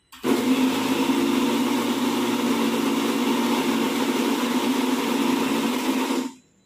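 Electric mixer grinder running at speed, grinding soaked whole green gram and cooked rice into a fine batter paste. It starts abruptly just after the beginning, runs steadily, and cuts off sharply about six seconds in.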